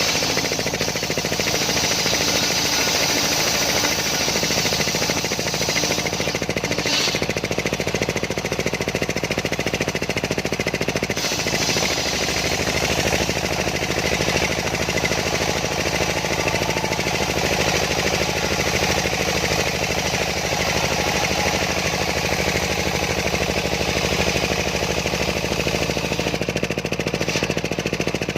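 Homemade engine-driven circular saw running steadily while ripping a large sengon log: a rapid even engine beat under the hiss of the blade cutting the wood, the cutting sound shifting a few times as the log feeds through.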